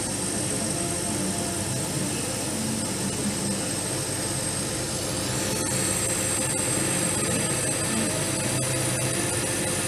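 Steady machine noise with a thin high whine from a powered-on CO2 laser cutter's fans and pumps. The whine steps slightly higher about halfway through.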